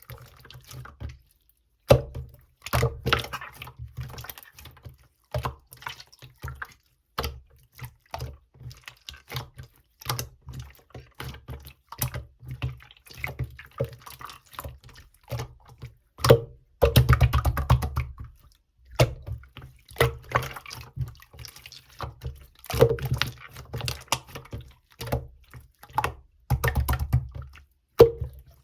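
Clear slime being squished and poked by hand, making a run of irregular wet clicks and pops, with a few stretches of faster crackling and short pauses between.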